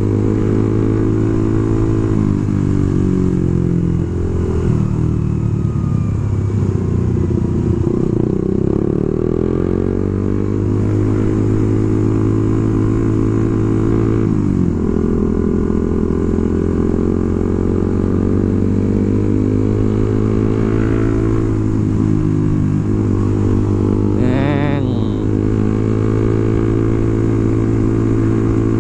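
Suzuki GSX-R150's single-cylinder engine running while riding, with its pitch dipping and rising again around eight to ten and about fourteen seconds in as the revs change. A short wavering higher tone sounds about twenty-four seconds in.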